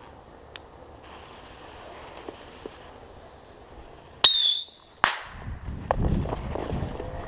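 A firework goes off: a sharp crack with a brief whistle about four seconds in, then a second loud bang under a second later.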